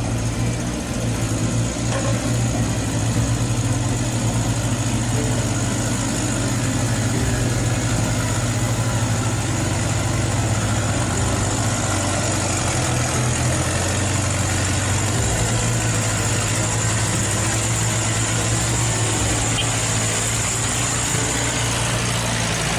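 Radio-controlled Hino model truck running: a steady, engine-like low drone with a thin high whine over it that stops near the end.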